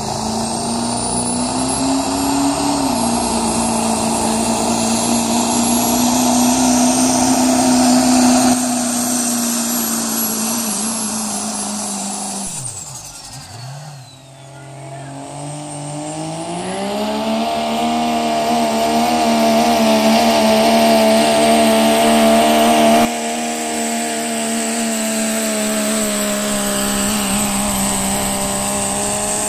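Turbocharged diesel pickup engines at full throttle pulling a sled, with a high whine held over the engine. The first run dies away about 12 seconds in; a second truck's engine then climbs in pitch and holds steady under load.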